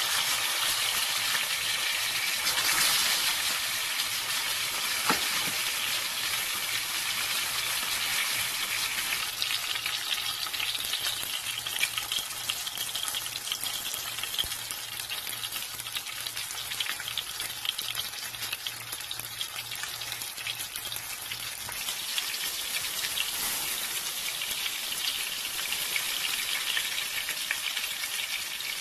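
A whole pompano shallow-frying in hot oil in a nonstick pan: a steady sizzle with fine crackling.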